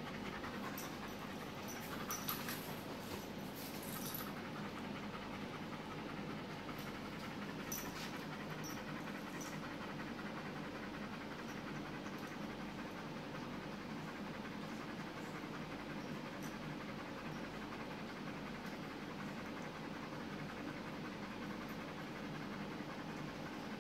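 Beauceron panting steadily, with a few light clicks in the first four seconds.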